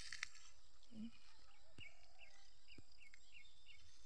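Faint outdoor background hiss with a bird giving a quick run of about six short, high chirps about halfway through, and a few soft clicks.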